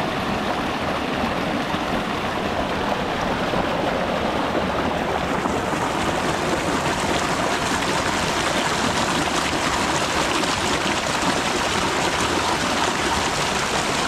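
Hot volcanic river flowing over rocks, a steady rushing of water that grows brighter and hissier about halfway through.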